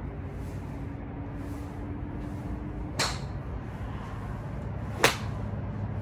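Two sharp cracks of golf clubs striking balls off driving-range mats, about two seconds apart, the second louder, over a steady low rumble of wind.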